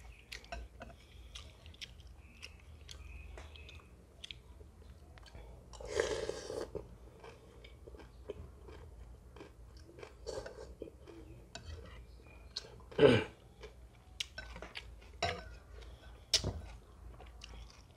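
Close-up mouth sounds of a person eating Khmer rice noodles in soup: steady wet chewing and lip smacks, with a few louder slurps, the loudest about six and thirteen seconds in.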